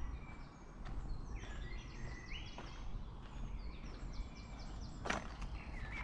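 Small woodland songbirds singing: several quick runs of high, sliding notes, with the walker's footsteps tapping on a dry dirt path and a steady low rumble underneath.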